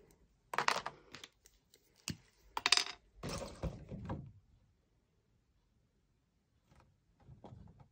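Arteza plastic brush pens clicking and clattering as one is put back in its clear plastic case and another is taken out: a few sharp knocks and clinks with a short ring over the first half, then quiet, and a few faint ticks near the end.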